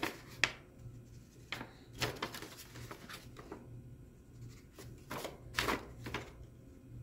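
Pencil marking dots on a creased paper square: a handful of short scratchy strokes at irregular intervals, with light paper handling between them.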